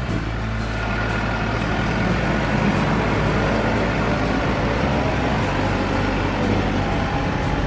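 New Holland T5 tractor's diesel engine running steadily as the tractor drives past.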